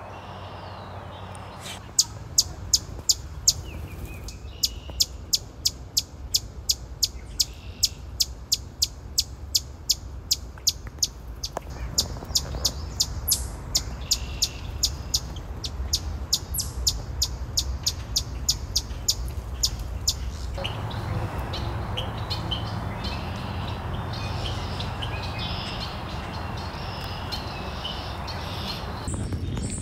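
Eastern chipmunk giving its repeated 'chip' call: sharp, high single chips about three a second, with a short break near the start, stopping about twenty seconds in. After that there is a steady even hiss.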